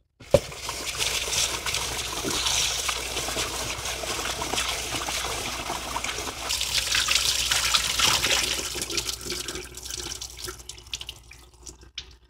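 Kitchen tap running and water splashing as parboiled idli rice is rinsed. The water starts suddenly and tapers off near the end.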